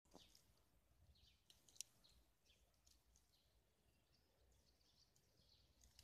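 Near silence with faint bird chirps scattered through, and a single sharp click just under two seconds in.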